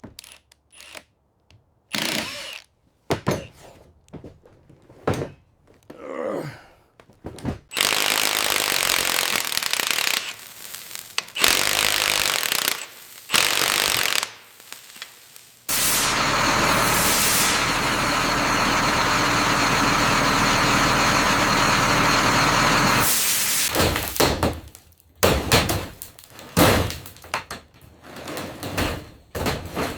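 Workshop power-tool noise: short bursts of tool noise and knocks, then a steady run of about seven seconds past the middle, then more short bursts.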